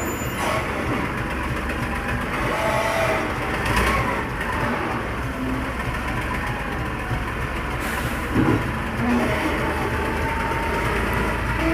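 Tractor engine running steadily at a sand and gravel yard, a loud, continuous low rumble with a brief louder jolt about eight and a half seconds in.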